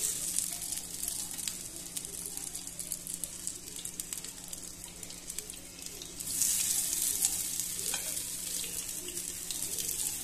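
Hot coconut oil sizzling and crackling in a non-stick pan as skewered minced-mutton kebabs are laid in to shallow-fry. The sizzle gets louder about six seconds in, when another kebab goes into the oil.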